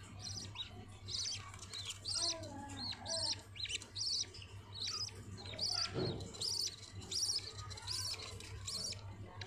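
Budgerigars chirping: a steady run of short, high chirps repeating two or three times a second, over a low steady hum.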